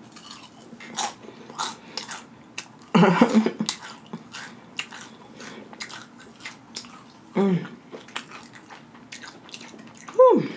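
Close-up crunching and wet chewing of a tortilla chip, with many small crisp crackles and mouth smacks. There are a few short, wordless vocal sounds, about 3 and 7.5 seconds in, and one falling in pitch near the end.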